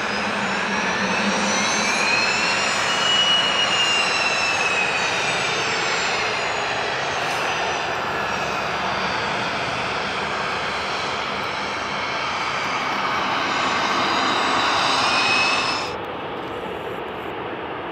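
Boeing 737-900ER's CFM56 jet engines running as the airliner taxis onto the runway: a steady jet rush with a fan whine that rises and then falls in pitch a few seconds in. Near the end the high hiss drops away suddenly and the sound turns duller and a little quieter.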